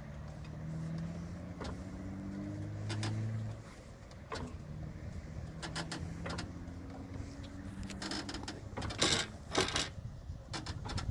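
Rotax 912 ULS engine being turned over slowly by hand to burp it, pushing crankcase oil back up to the open oil tank. Repeated low rising tones come with scattered clicks, and a few louder sharp knocks come near the end. The engine shows good compression.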